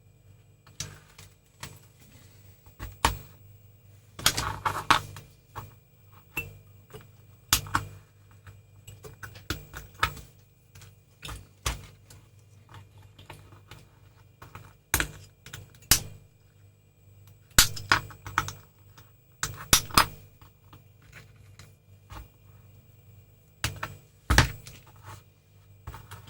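Irregular clicks, taps and light knocks of a soldering iron, tools and small components being handled on a workbench while resistors are soldered onto a circuit board, with a brief scraping rub about four seconds in.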